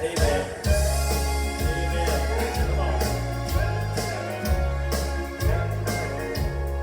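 Instrumental interlude of a Southern gospel song between verses: accompaniment with a strong bass line and a steady beat, with no lead vocal.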